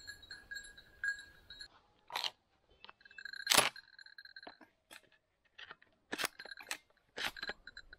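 A small bell jingling in quick pulses, as a bird dog's collar bell does, then several sharp crunching steps through dry cover, the loudest about three and a half seconds in, with the bell clinking now and then.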